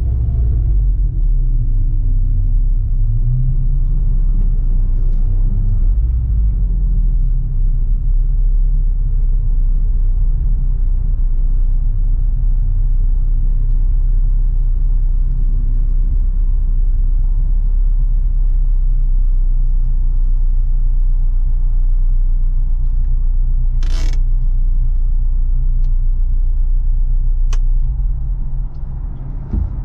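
Honda S2000's 2.2-litre inline-four running at low revs as the car rolls slowly, heard from inside the cabin as a steady low rumble. A short sharp noise comes about three-quarters of the way through, and the rumble drops quieter near the end.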